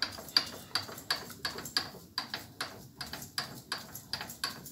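Lathe slide handwheel being cranked, giving short, sharp clicks at a steady pace of about three a second as the slide travels.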